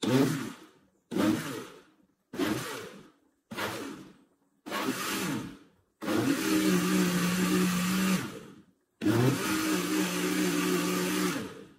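Oster 1100 W blender pulsed in five short bursts, each spinning down, then run twice for about two and a half seconds, its jar full of liquid cornmeal cake batter.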